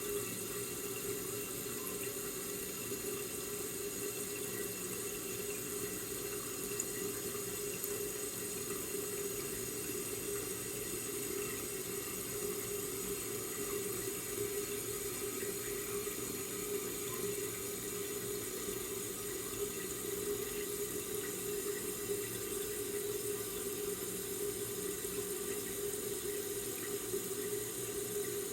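Toilet tank refilling: a steady rush of water through the fill valve.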